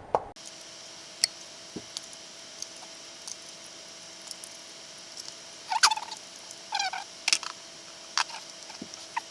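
Plastic electrical connectors on the diesel injectors being pried and unclipped with a screwdriver. There is a sharp click about a second in, two short rattling runs of clicks around six and seven seconds in, and more single sharp clicks near the end, over a steady faint hum.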